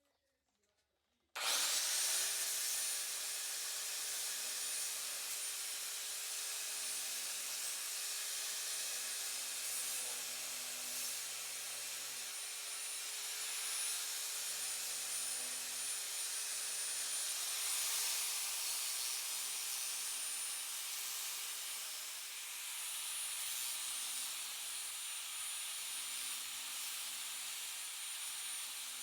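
Woodworking power tool motor starting about a second and a half in, spinning up quickly, then running steadily with a high whine for the rest of the time.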